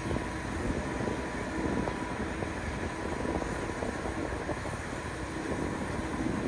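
Airbus A350-900 taxiing, its Rolls-Royce Trent XWB turbofans at idle thrust: a steady rush of jet noise with a faint steady whine.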